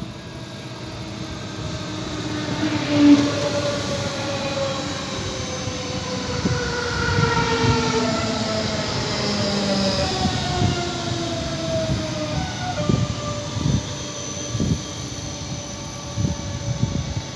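Red electric multiple-unit train pulling into a station, its traction motors whining in several tones that fall in pitch over about ten seconds as it brakes. Short sharp knocks come in near the end as it slows alongside the platform.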